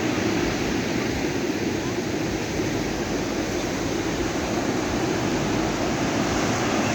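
Steady rush of ocean surf on the beach, an even wash of noise without clear wave-by-wave swells.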